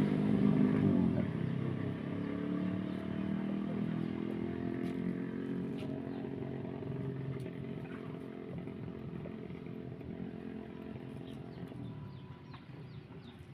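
Motorcycle engine running steadily, growing gradually fainter over several seconds.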